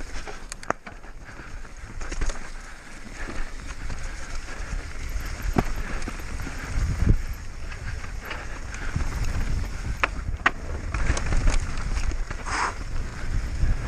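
Mountain bike descending a rough race trail: wind rumbling on the microphone and tyres on dirt and rock, with scattered sharp knocks and rattles from the bike over the bumps.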